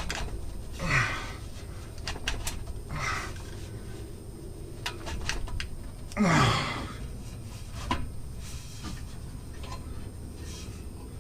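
A man grunting and exhaling hard with effort, three times with a falling pitch, the loudest about six seconds in. A few small clicks and knocks of parts being handled come in between.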